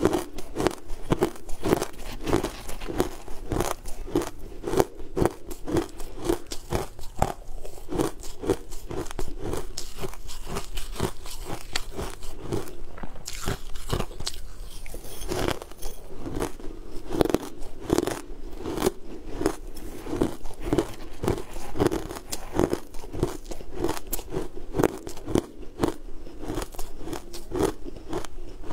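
Close-miked chewing and crunching of a mouthful of food, with a steady jaw rhythm of about two chews a second and many small crisp clicks.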